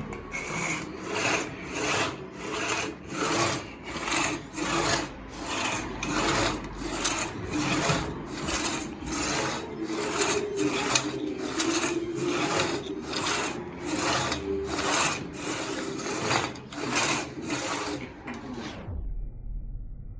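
Hand saw cutting through a thick piece of wood in steady back-and-forth strokes, about two and a half a second, stopping abruptly near the end.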